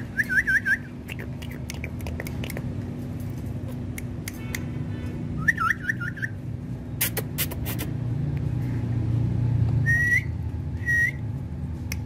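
Indian ringneck parakeet giving a quick run of chirping notes at the start and another about halfway through, then two short single whistled notes near the end. Scattered sharp clicks and a steady low hum run underneath.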